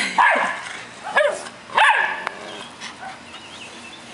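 A dog barking three times in quick succession during rough play with another dog. The barks fall in about the first two seconds and are quieter after that.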